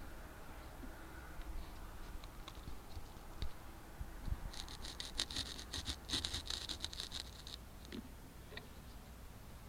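Bicycle on a gravel trail: faint scratching and pattering of the tyres over gravel, with a burst of rapid, high ticking lasting about three seconds from around halfway through.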